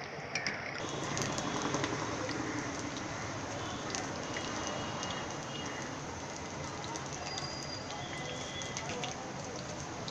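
Battered cauliflower pieces deep-frying in hot oil in a steel pan: a steady sizzling hiss with fine crackles.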